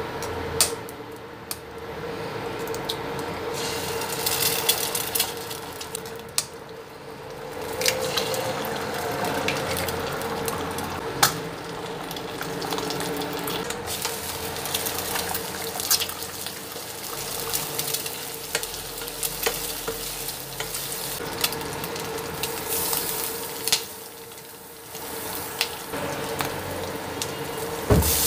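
Egg frying and sizzling in vegetable oil in a nonstick pan while a spatula stirs and scrapes it, with frequent sharp taps of the spatula on the pan and a steady hum underneath. Near the end chopped tomatoes drop into the pan with a louder burst of sizzling.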